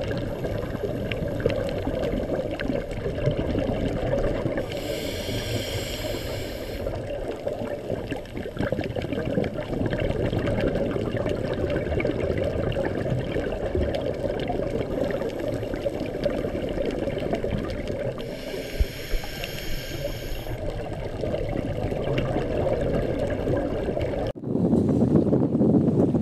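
Underwater sound of a scuba diver breathing through a regulator: two bursts of exhaled bubbles hiss and gurgle up, each about two seconds long, over a steady water rush. About two seconds before the end it cuts abruptly to a louder, steady rushing noise.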